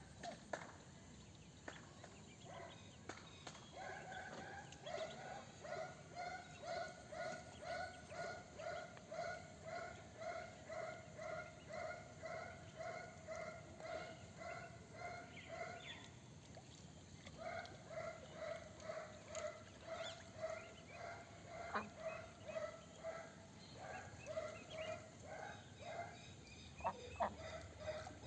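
White Pekin duck quacking in a steady, regular run of calls, about one and a half a second, breaking off briefly midway and then carrying on. A couple of sharp knocks near the end.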